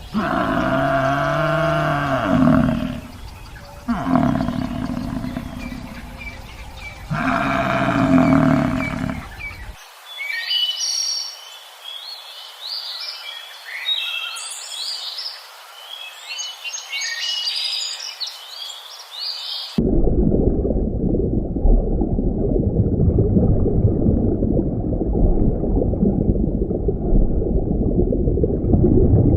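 A run of different animal sounds cut one after another: three long pitched calls, then about ten seconds of quick high bird chirps, then an abrupt switch to a low, rough, continuous noise.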